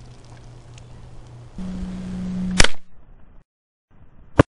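Shots from a Winchester Model 67 single-shot bolt-action .22 rimfire rifle: a sharp crack about two and a half seconds in, the loudest sound, and a second, shorter crack near the end. Before the first shot there is a steady low hum that steps up in pitch about halfway to it.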